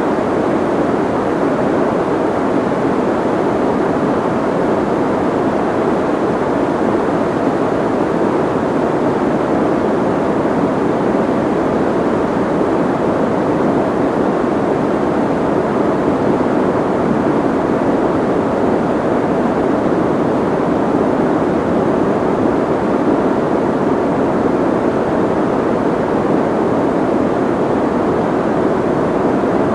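Soft white noise: a continuous, unchanging hiss, strongest in the lower middle range with the treble rolled off, so it sounds muffled rather than bright.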